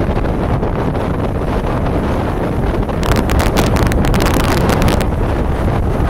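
Strong wind buffeting the microphone over choppy water and waves breaking against rocks, a steady heavy rush. About halfway through, a crisper hiss of spray comes in for some two seconds.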